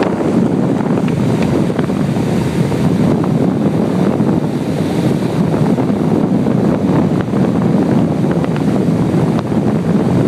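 Motorboat running at speed while towing a water skier, its engine and water noise mixed with a steady rush of wind on the microphone.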